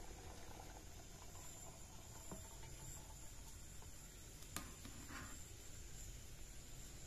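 Quiet handling of boiled rice being drained: a steel bowl scooping rice and cooking water from a pot and tipping it into a plastic colander, with one sharp clink about halfway through, over a faint steady high hiss.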